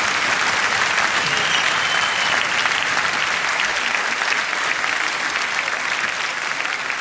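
An arena crowd applauding: dense, steady clapping that eases off slightly near the end.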